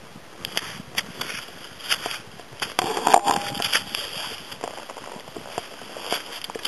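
Touring skis sliding and scraping through crusty, granular snow, with irregular sharp clicks and knocks from the TLT boots in their tech bindings as each ski steps forward. The loudest knock, with a short squeak, comes about three seconds in.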